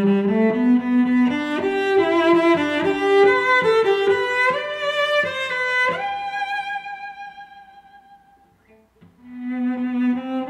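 Background music on bowed strings, violin and cello, playing a melody; a long held note fades out about eight seconds in, and the music starts again a moment later.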